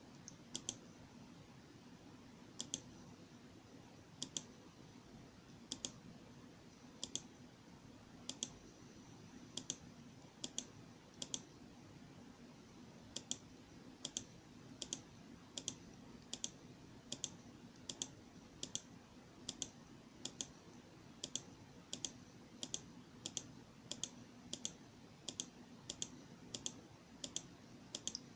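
A series of sharp, light clicks, a second or more apart at first, then about one to two a second, over a faint steady hum.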